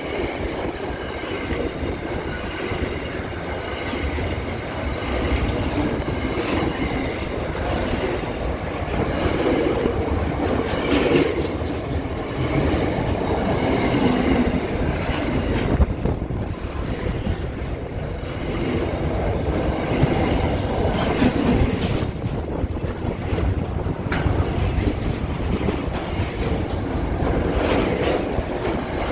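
Freight train of container wagons rolling past close by: a steady rumble of steel wheels on the rails, with occasional sharp knocks and a faint high ringing in the first half.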